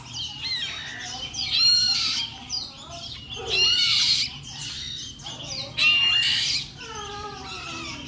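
Cucak kopi nestlings calling from their nest basket: about six short, harsh squawking begging calls in a row as the chicks are handled.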